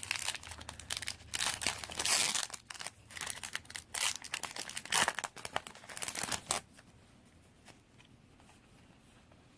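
Foil trading-card booster pack wrapper crinkling and being torn open, in a run of sharp crackly rustles that stops about six and a half seconds in.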